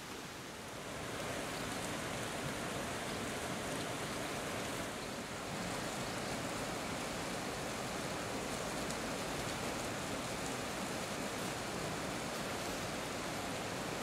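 Steady rush of a river running over rapids in a rocky gorge, coming up about a second in.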